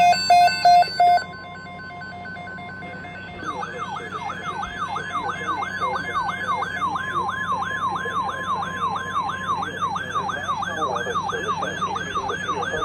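Emergency weather alert signals. Four loud, short electronic beeps come first. After a brief lull, a fast siren-like warble follows, sweeping up and down about three times a second. For about four seconds in the middle, NOAA Weather Radio's steady warning alarm tone sounds under it, marking an alert for a severe thunderstorm watch.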